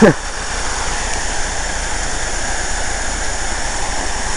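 Waterfall and mountain stream: steady, even rushing of falling water.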